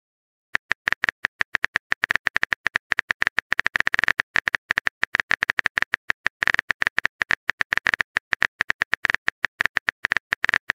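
Simulated phone keyboard typing: a rapid, uneven stream of short, identical key-tap clicks as a text message is typed letter by letter, starting about half a second in.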